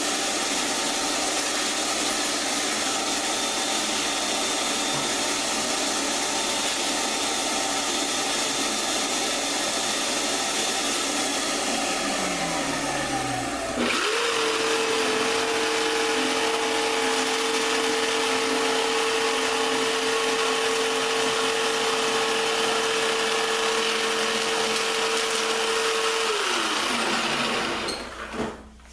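Electric router running through a cut over a steady rushing noise; its whine drops just before halfway, then settles on a strong steady pitch. Near the end the whine falls away as the router spins down, and all the noise stops.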